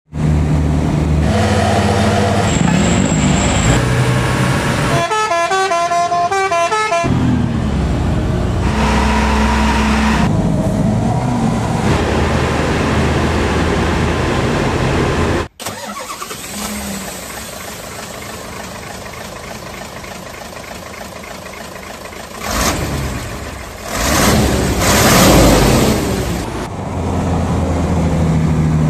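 Heavy diesel trucks running on a climb, with a musical "telolet" multi-tone horn playing a quick stepping tune for about two seconds a few seconds in. Midway the sound drops off suddenly. Later a truck engine grows louder and fades as it passes.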